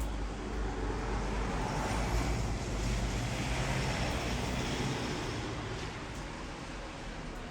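A vehicle passing by, its rumble and noise swelling to a peak a few seconds in and then fading away.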